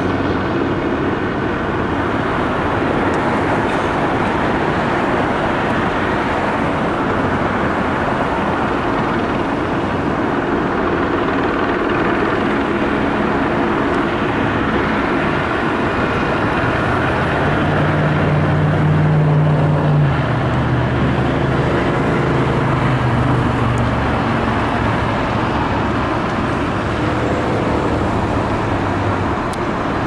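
Sky Fox news helicopter hovering, its rotor and turbine a steady drone mixed with road traffic noise. A deeper engine drone swells about seventeen seconds in and fades by about twenty-four seconds.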